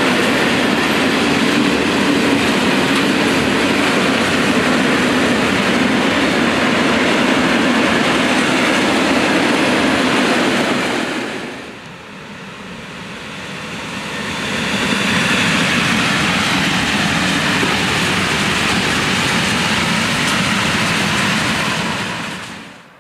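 Freight trains passing close by: the steady rumble and clatter of wagon wheels on the rails from a long train of covered hopper wagons. About halfway through the sound dips, then builds again as an electric locomotive hauling open hopper wagons comes through. It cuts off suddenly at the very end.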